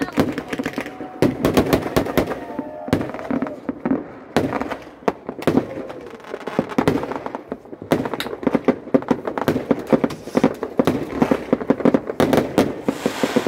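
Aerial fireworks going off in rapid volleys: dense clusters of crackling bangs lasting a second or two, with short quieter gaps between them, and an unbroken run of bangs over the last five seconds or so.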